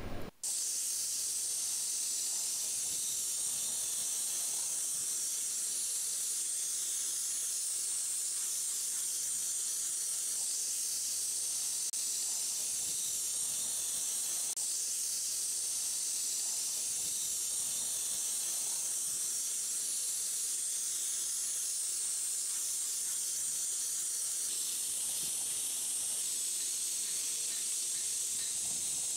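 Compressed-air spray gun hissing steadily as it atomizes wood stain, a sharp, even hiss with no let-up.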